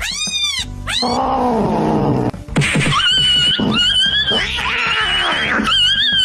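Cat yowling while facing off a dog. A few short arching cries come in the first second, then a rasping stretch, then a long, high, wavering yowl from about three seconds in.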